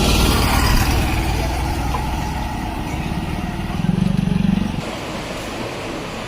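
Road traffic: a motor vehicle passes close by, engine and tyre noise loudest at the start and fading over the next couple of seconds. A low engine drone swells briefly about four seconds in, over steady road noise.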